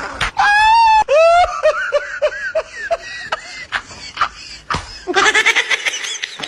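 High-pitched cartoonish laughing: a long drawn-out wavering call, then a run of quick short 'heh-heh' notes, with a denser burst of cackling about five seconds in.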